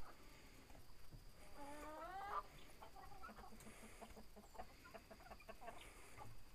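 Chickens clucking softly, with one drawn-out call that rises in pitch about two seconds in.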